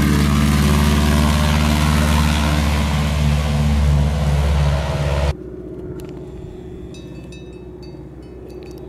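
de Havilland Canada DHC-2 Beaver's Pratt & Whitney R-985 radial engine and propeller at takeoff power, a loud, steady drone. It cuts off abruptly about five seconds in, leaving a much quieter outdoor background with a few faint clicks.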